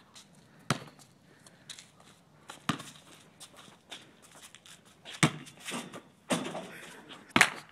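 Basketball bouncing on an asphalt driveway: single sharp knocks every couple of seconds, the loudest near the end. About six seconds in, a dunk on a portable hoop sets the rim and backboard rattling briefly.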